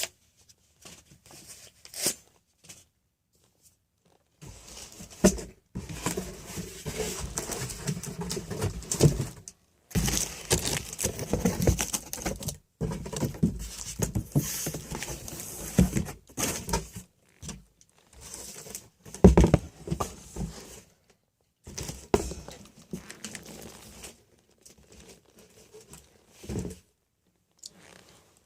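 Box packaging being handled and pulled apart: irregular rustling, scraping and tearing, with a few sharper knocks, in stretches broken by short pauses.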